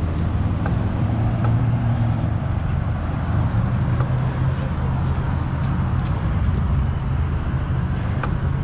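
Steady road traffic along a busy street, heard from a moving bicycle: a continuous low rumble and hiss with a few faint ticks.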